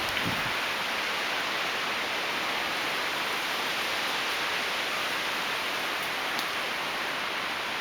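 Storm wind rushing steadily through trees, an even unbroken noise.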